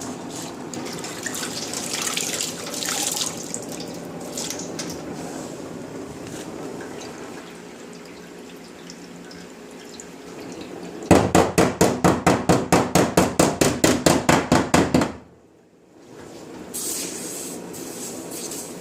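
Heat-shrinking a stretched steel van quarter panel. A heating flame hisses steadily for about ten seconds. Then comes a quick run of about twenty hammer taps on the hot spot, roughly five a second, and near the end a water quench hisses on the hot metal to shrink it.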